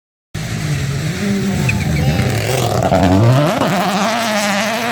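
Rally car engine at full throttle, revving up and dropping in pitch with each gear change as the car passes, cutting in abruptly just after the start.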